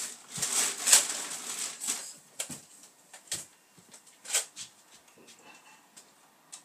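Rustling handling noise, then a few separate sharp plastic clicks and knocks spaced about a second apart, from a toy Nerf blaster being handled and reloaded.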